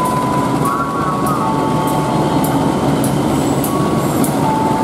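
CC201 diesel-electric locomotive rolling past at low speed hauling a rake of passenger coaches: steady engine and wheel-on-rail rumble, with thin squeals from the wheels that hold a pitch and then step to a new one.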